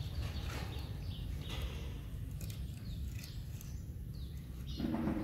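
A steady low outdoor rumble with scattered short, high chirps that fall in pitch. A louder, lower call comes near the end.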